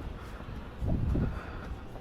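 Wind buffeting a camera microphone in low rumbling gusts, strongest about a second in.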